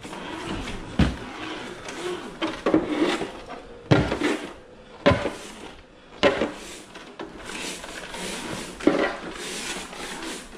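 Knocks and clatter of a 1/8 Arrma Felony RC car being picked up, turned over in the hands and set down on a concrete floor: about half a dozen sharp knocks with rustling handling noise between them.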